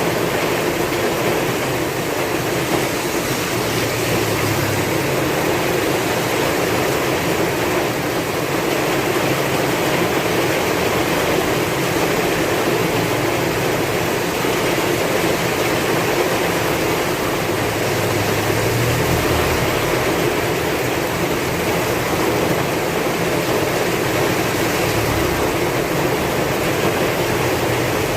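Heavy rain falling in a steady, dense hiss, with a low wind rumble that swells and fades a few times.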